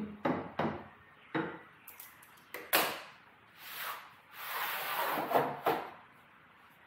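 Sheet metal being handled and worked on a workbench: several sharp clicks and knocks, then two longer scraping rubs of metal, with a couple more clicks near the end.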